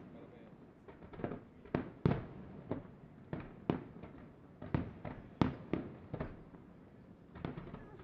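Colangelo Fireworks aerial display: a quick, irregular string of shell bursts and bangs, about two a second, sometimes in clusters of two or three, each trailing off in a short echo.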